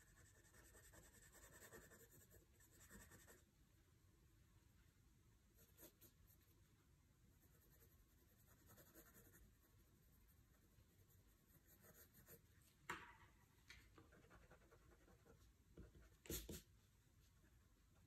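Faint pencil scratching on sketchbook paper in short drawing strokes, with a couple of louder, sharper strokes near the end.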